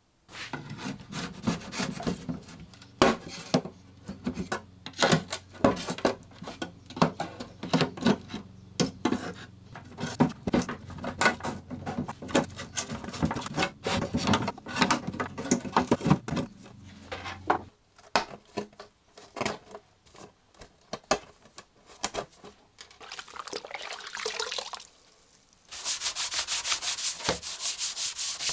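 A steel paint scraper scraping along the old finish of a wooden piano stool in short, irregular strokes. Near the end, a pad is rubbed rapidly back and forth over the wood.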